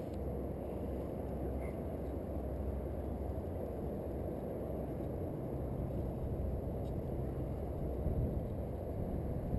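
Steady low rumble of wind and handling noise on a GoPro housing's microphone, with no distinct events.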